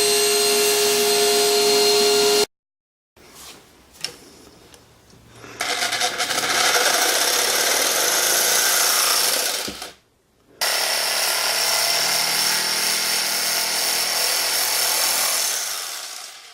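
Power saw cutting through a wooden support post in several short stretches that stop and start abruptly. It opens with a steady motor whine, then after a sudden break comes a quieter stretch with a single click, and then two long loud stretches of cutting that fade out near the end.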